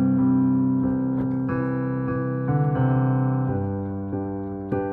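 Piano playing held chords that change every second or so and slowly die away, with two freshly struck chords near the end.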